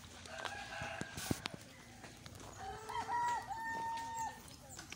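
A rooster crowing: a fainter call near the start, then a long, louder crow in the second half.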